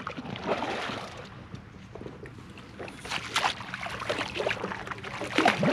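Water sloshing and splashing at the water's edge, with a few sharper splashes about three seconds in.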